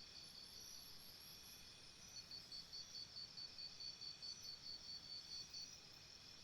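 Faint jungle insect chorus: crickets and similar insects keeping up a steady high-pitched buzzing, joined in the middle by a quick pulsed chirping at about five chirps a second.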